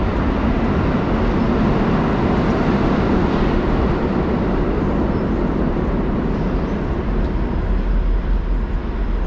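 Steady, loud city street traffic noise: a continuous low rumble of passing vehicles with no distinct single event.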